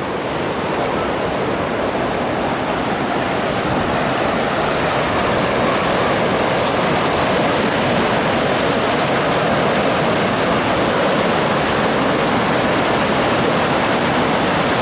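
Whitewater rushing steadily through an artificial concrete slalom channel, getting a little louder and brighter over the first few seconds.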